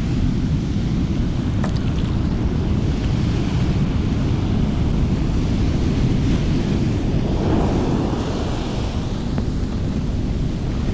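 Large ocean surf breaking and washing up the beach, with wind buffeting the microphone. A wave surges in about seven to eight seconds in.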